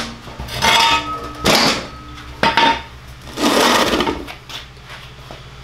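Metal tools and parts being handled and set down: four short clattering scrapes about a second apart, a couple of them leaving a brief metallic ring.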